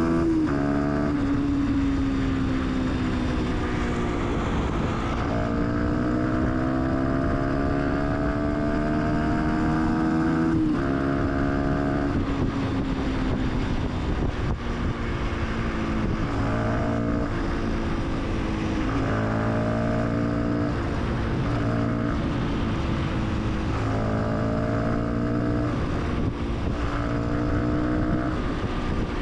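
Fantic 125 supermoto's single-cylinder engine under way, pulling through the gears: its pitch climbs and then drops sharply at each upshift in the first half. Later it rises and eases off again and again with the throttle, over steady wind and road noise.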